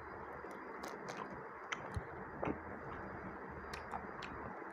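Faint, scattered crinkles and small clicks of a thin wrapping sheet being peeled off a piece of halwa by hand, over a steady low hiss of room noise.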